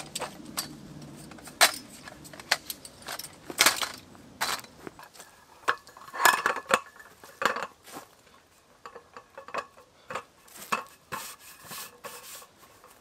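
Folding camp table being set up: its metal frame clicking and clacking as it is unfolded and locked, then its roll-up slatted top clattering as it is laid out on the frame. The sound is a string of irregular sharp clicks and knocks.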